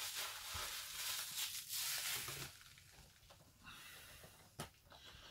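Rustling of packaging in a cardboard box as a boxed Funko Pop figure is lifted out, fading after about two and a half seconds, then a single faint click near the end.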